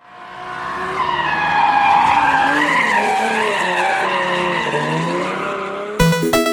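A loud, noisy, squeal-like sound with several tones wavering up and down at once, swelling in over the first second and then holding. A bouncy electronic tune with sharp beats cuts in near the end.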